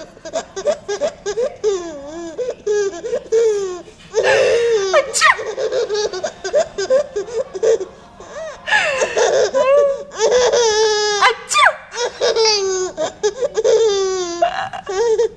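Ten-month-old baby boy laughing in several long fits, with short breaks between them.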